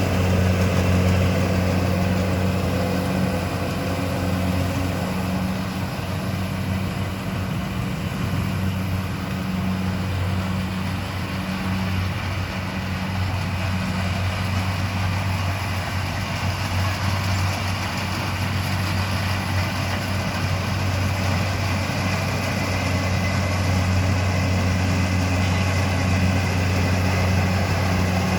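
Engine of a rice-harvesting machine running steadily at constant speed, a low, even drone that dips slightly in loudness mid-way.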